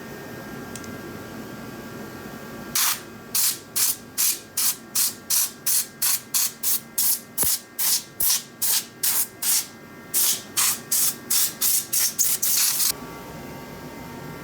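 Quick repeated hissing spray bursts, about two to three a second, starting about three seconds in and running for about ten seconds, the last one held a little longer.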